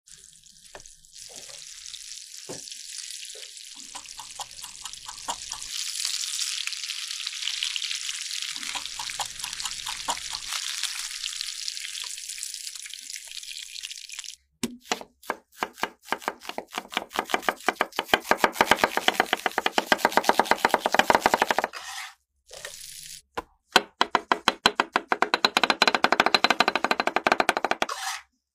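Salmon sizzling as it fries in a pan, a steady hiss. About halfway through, the sizzle gives way to a knife chopping mushrooms on a wooden board in fast, even strokes, broken by two short pauses near the end.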